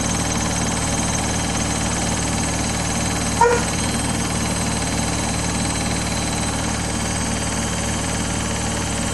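Samsung WW80J5555FWEU front-loading washing machine running on its Daily Wash 40°C programme: a steady mechanical hum with an even vibration. About three and a half seconds in there is one brief, sharp, ringing knock.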